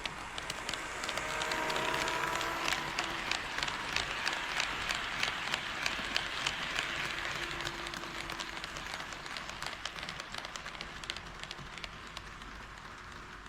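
HO scale model train running on sectional track, its wheels clicking over the rail joints about twice a second. The running noise is loudest about two seconds in, then slowly fades as the train moves away.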